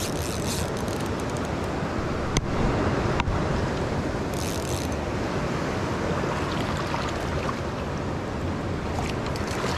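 Steady rushing of flowing spring water around a wading angler, with wind on the microphone. Two short sharp clicks sound about two and a half and three seconds in.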